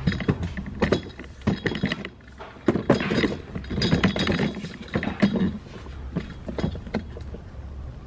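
Irregular handling noise: a string of clinks, clicks and knocks, busiest from about one to five seconds in.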